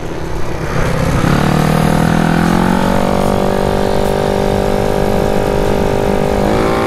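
Single-cylinder scooter engine pulling hard on a racetrack. Its note climbs over the first couple of seconds and then holds a steady high drone, with a slight dip near the end, under a rush of wind on the microphone.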